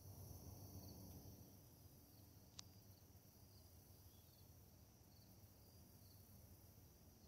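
Near silence: a faint, steady high chorus of insects, with a low rumble easing off over the first couple of seconds and a single sharp click about two and a half seconds in.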